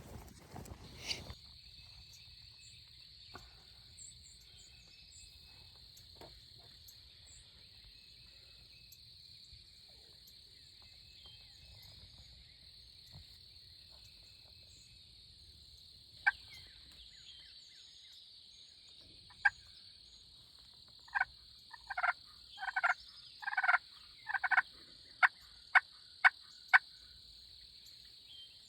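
Turkey yelping: a single note, another a few seconds later, then a run of about ten short yelps over some six seconds, the last few sharper and evenly spaced.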